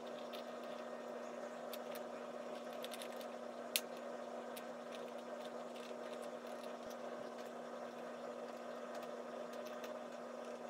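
Faint small clicks and ticks of fingers handling small parts at a motherboard's CPU socket, with one sharper click a little under four seconds in, over a steady background hum.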